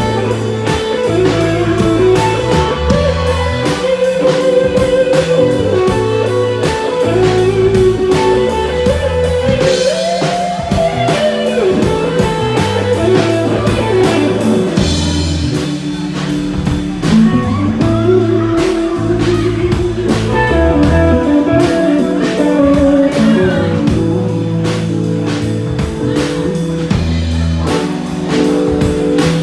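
Band playing blues-rock: an electric guitar lead with bending notes over bass and a steady drum-kit beat.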